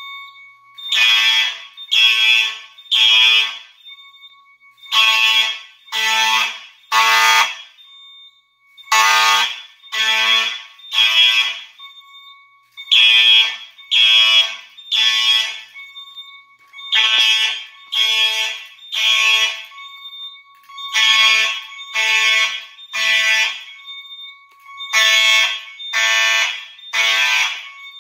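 Electronic fire alarm horns sounding the temporal-three evacuation pattern: three short blasts about a second apart, then a pause, repeated seven times. A faint steady tone carries on between the blasts.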